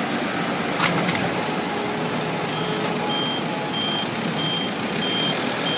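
Yale forklift's reversing alarm beeping evenly, about one and a half high beeps a second, starting about two and a half seconds in, over a steady vehicle hum, with a brief clatter a little under a second in.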